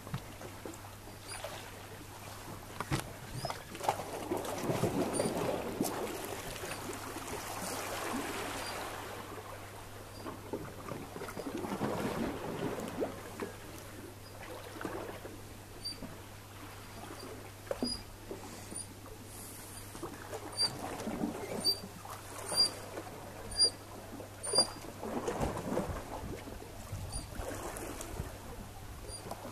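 Short, high-pitched peeps from Eurasian otter cubs, repeated about once a second through the second half, over swells of broad water and wind noise.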